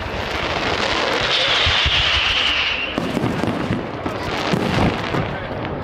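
Fireworks going off: a dense crackling hiss that swells into a high, slightly falling whine over the first three seconds, then a run of booms and sharp cracks from shells bursting.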